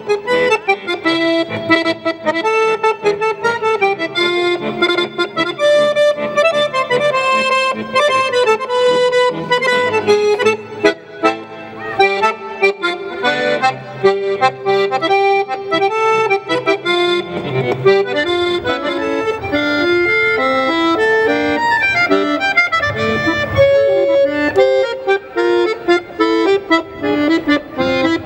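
Solo chromatic button accordion playing a fast tune, with running melody notes over chords. About two-thirds of the way in it changes to a different piece with deeper, heavier bass notes.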